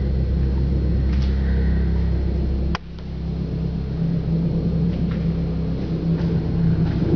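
Steady low rumble with a faint hum. About three seconds in, a sharp click comes, after which the deepest part of the rumble suddenly stops.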